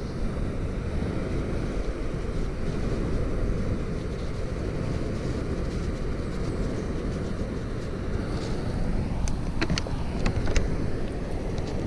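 Steady low outdoor rumble, with a few sharp clicks and crinkles about nine to eleven seconds in as a plastic water bottle is pulled from a bag and handled.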